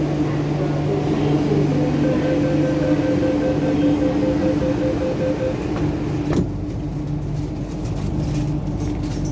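Inside an MTR Kwun Tong Line Q-Train car at a platform: the door-closing warning beeps repeatedly for about three seconds over the train's steady hum. Then the doors shut with a knock a little past halfway, and the station noise becomes muffled.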